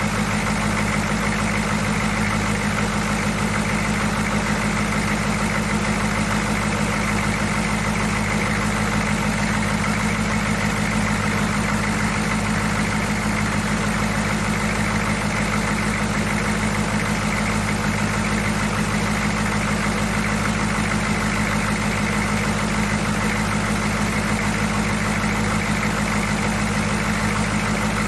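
1982 Chevy C10's 6.2-litre V8 diesel engine idling steadily.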